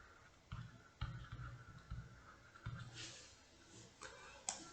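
Faint writing sounds: short, irregular scratches and taps of a pen, with a few sharp clicks in the second half.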